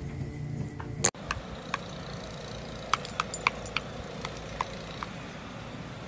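Scattered, irregular light metallic clicks and ticks from a metal garden wind spinner turning in the wind, after a low steady hum ends with a sharp click about a second in.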